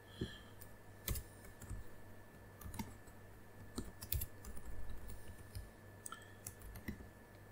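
Scattered keystrokes and clicks on a computer keyboard, irregular and fairly quiet, over a faint steady hum.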